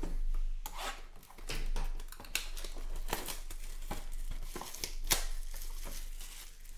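Plastic shrink wrap being torn and crinkled off a sealed football trading-card box by hand, with a sharp click about five seconds in.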